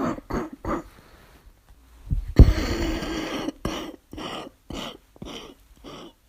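A person with a barking cough, which the uploader puts down to asthma. Three quick coughs come first, then about two seconds in a longer, louder cough with a hoarse voiced tone, then a run of five short coughs growing quieter.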